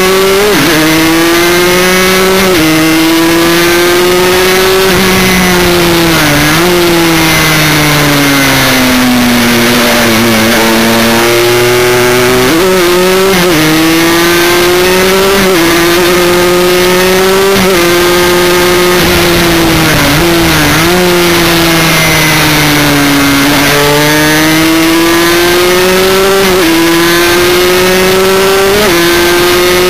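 Aprilia Extrema 125's two-stroke single-cylinder engine at racing speed, its pitch climbing and falling repeatedly as the bike accelerates and slows for corners, with quick breaks at the gear changes. Wind rush over the onboard microphone runs underneath.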